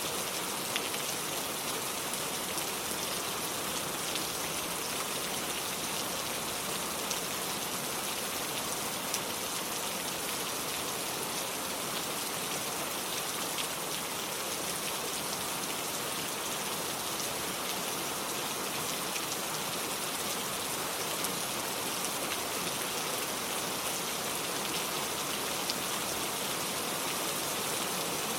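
Steady rain falling, an even hiss with scattered louder drops ticking now and then.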